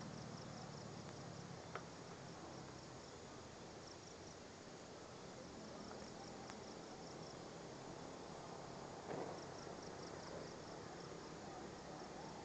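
Crickets chirping faintly in rapid, evenly pulsed high-pitched trills over a low hiss, with a small click about two seconds in and a soft knock around nine seconds.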